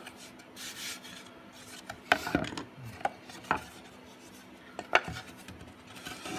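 CNC-cut plywood parts being handled on a plywood sheet: a scraping rub early on, then about five sharp wooden knocks and clacks as pieces are lifted out, moved and set down.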